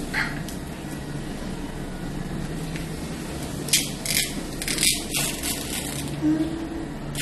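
Sealed plastic film lid being peeled off a jelly cup: a cluster of sharp crinkles and tearing crackles about four to five seconds in, over a steady low hum.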